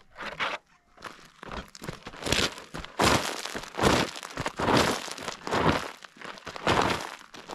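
Prospecting pick scraping and digging into pebbly red dirt and gravel, a series of gritty crunching strokes about one a second, as a gold target is dug out.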